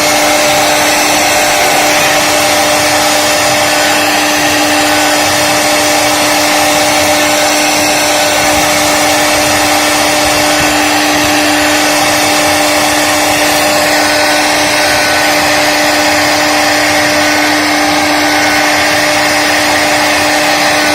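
CNC router's spindle running steadily as it carves, a constant whine over a dense, even hiss.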